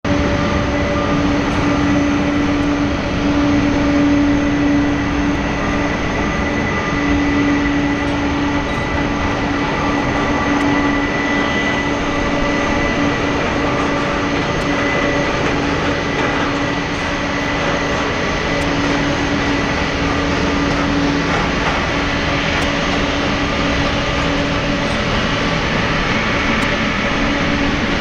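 Jet airliner engines running at idle for taxiing: a steady, unbroken roar with a constant whine on top.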